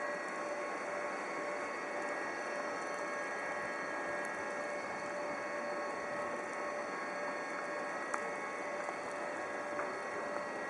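Bombardier TRAXX F140 locomotive standing with a steady hum and a few constant whining tones, with a couple of faint clicks near the end.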